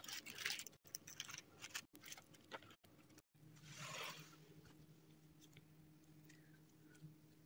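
Packaging being handled by gloved hands: a quick run of soft crackles and clicks from tissue paper and a gift box. After a cut comes a steady low hum, a brief rustle about four seconds in, then faint light handling sounds.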